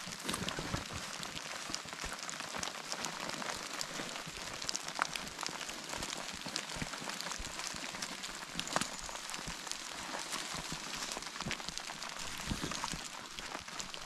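Steady rain falling: an even hiss scattered with many small, sharp drop ticks.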